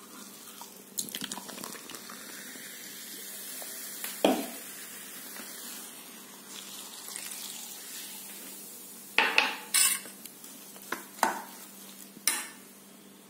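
A spoon stirring and scraping a thick rava cake batter in a stainless steel bowl, with a fizzing hiss through the first half as Coca-Cola goes into the mix. Sharp clinks of the metal spoon against the bowl come once about four seconds in and several times in the second half.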